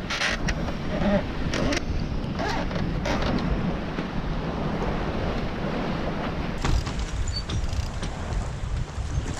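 Wind buffeting the microphone and the sea rushing past the hull of a sailboat under way, a steady noise. A few short rustles come in the first three seconds or so.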